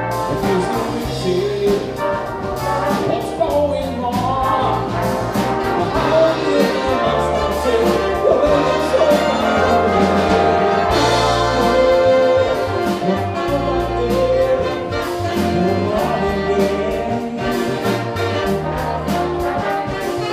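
Big band playing live: trumpets, trombones and saxophones in held chords over bass and drums, with steady cymbal strokes.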